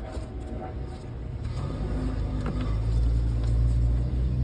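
A motor vehicle's engine rumbling low and growing louder over a couple of seconds, with a few light clicks of plastic air-box parts being handled.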